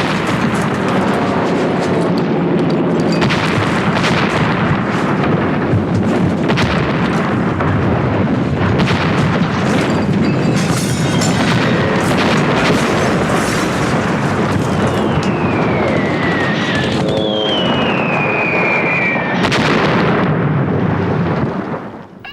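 Dense barrage of gunfire and booming explosions, many sharp shots over a continuous rumble, with two falling whistling tones a few seconds before the end; it cuts off suddenly just before the end.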